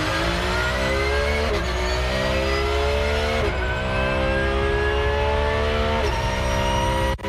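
Porsche 911 GT3 R race car's naturally aspirated flat-six, heard from inside the cockpit, accelerating hard. The engine note climbs steadily in each gear and drops at three quick upshifts, about one and a half, three and a half and six seconds in.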